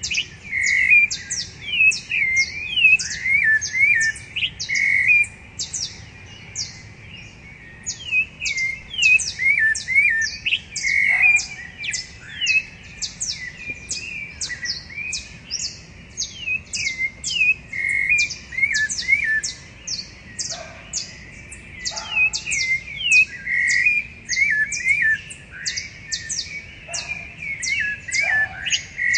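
Several rufous-bellied thrushes singing at once, their warbled, curling phrases overlapping without a break. A rapid run of sharp, high falling notes goes on above them throughout, and a few lower notes drop in now and then.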